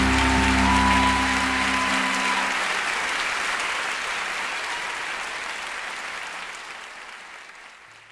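Final held notes of a live song recording ending about two seconds in, giving way to audience applause that fades out.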